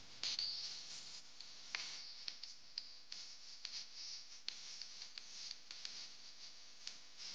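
Faint steady hiss with scattered sharp clicks and crackles, about two a second; no singing or speech is heard.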